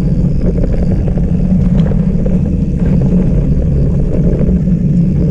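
Mountain bike riding over rough trail, heard through a bike- or helmet-mounted GoPro: a loud, steady rumble of tyres and wind buffeting the camera's microphone, with a constant scatter of small knocks and rattles.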